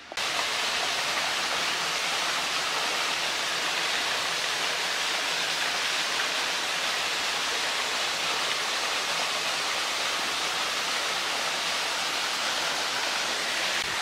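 Small waterfall pouring onto rocks: a steady rushing hiss.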